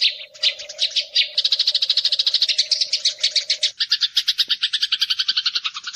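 Eurasian tree sparrows chattering: a dense, rapid run of short high chirps, about ten a second, without a break. A low steady hum sits under the first half and stops just past halfway.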